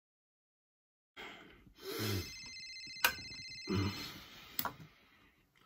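Mobile phone ringtone ringing, with a man's two sleepy groans and two sharp clicks as he reaches for the phone.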